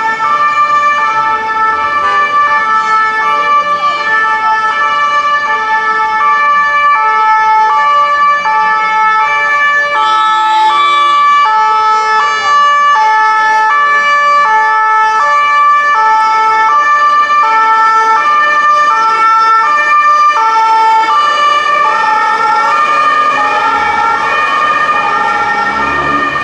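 Swiss ambulance's two-tone siren sounding continuously, switching back and forth between a lower and a higher note at a steady pace.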